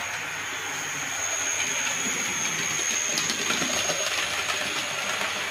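Model 2 BIL electric multiple unit running along the model railway track: a steady rolling rumble of wheels on rail with a thin, high motor whine, a little louder around the middle as it passes.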